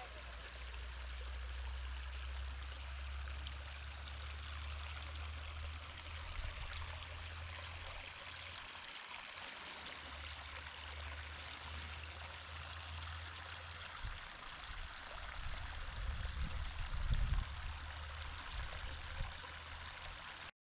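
Steady rush of flowing water from a mountain stream or waterfall. A low rumble runs underneath and gets louder and uneven a few seconds before the end.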